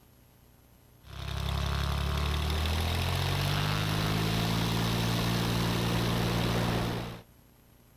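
Cessna 182RG's Lycoming engine and propeller at takeoff power, heard from outside the airplane, with the pitch rising as it comes up to full power and then holding steady. It starts abruptly about a second in and cuts off abruptly about seven seconds in.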